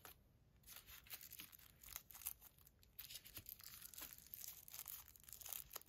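Faint crinkling and rustling of a clear plastic bag and tissue-paper wrapping being handled, in small scattered crackles.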